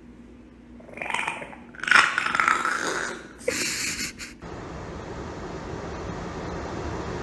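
French bulldog vocalising in three rough, noisy bursts, the middle one the longest and loudest. About four and a half seconds in it cuts to a steady rushing road noise inside a moving car.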